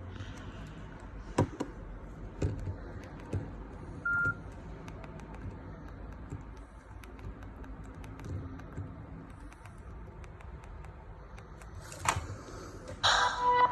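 Nokia 301 keypad buttons clicking as they are pressed, with one short beep about four seconds in. Near the end a ringtone melody starts playing.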